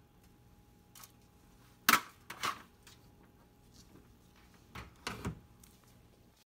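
Foil sample trays set down on a drying oven's wire rack with two sharp clicks about two seconds in, then the metal oven door pushed shut and its handle latched with a few clicks near the end. A faint steady tone runs underneath.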